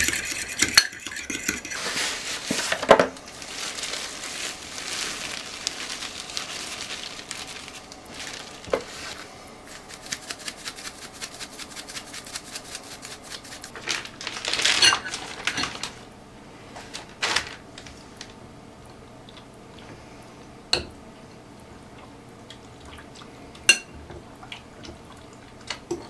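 A fork whisking egg and milk in a glass bowl, with a quick run of light clinks against the glass. Partway through there is a brief rustle, then only a few single clinks.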